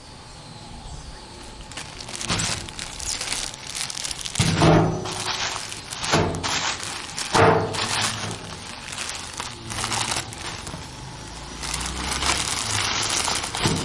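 Parcel packaging crinkling and rustling in irregular bursts as it is handled and torn open, loudest in the middle.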